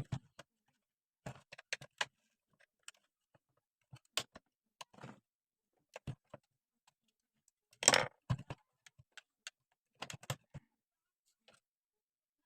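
Irregular clicks, knocks and light metallic clatter of tools and small parts being handled during disassembly, with a louder clatter about eight seconds in.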